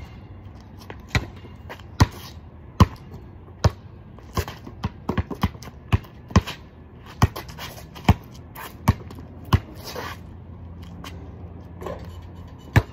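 Basketball dribbled on hard ground: sharp bounces about once a second, with a quicker run of bounces around four to five seconds in. The bounces pause for a few seconds near the end, then one more follows.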